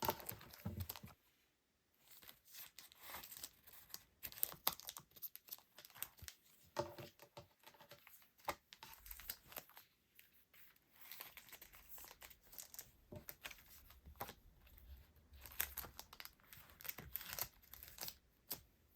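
Packaging handled close up: irregular crinkling and tearing, with many sharp crackles and a short pause about two seconds in.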